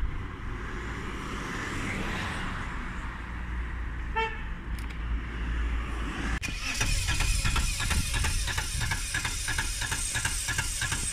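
Car traffic rumble with one short car-horn toot about four seconds in. Then a sudden change, about six seconds in, to a steady hiss with a regular scraping beat, a few strokes a second.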